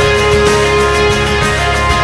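Background music: a song with held notes over a steady bass.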